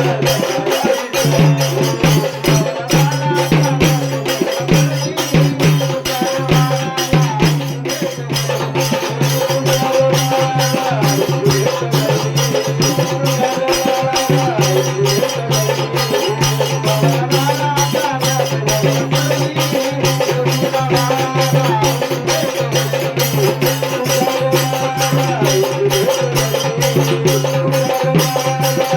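Marathi devotional folk music: a steady drone under a wavering melody line, kept by a quick, even percussion beat of rattles and taps.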